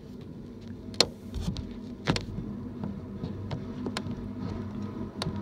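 BNSF intermodal freight train rolling past: a steady low rumble of the cars, broken by four sharp clanks about a second apart, the first the loudest.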